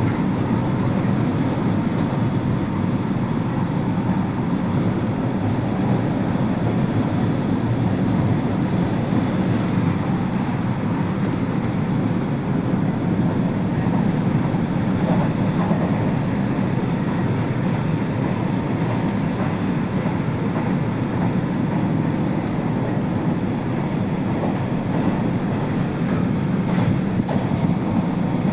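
Sanyo Electric Railway limited express train running at high speed, heard from inside the carriage: a steady, loud running rumble of wheels on rail with a faint steady whine above it.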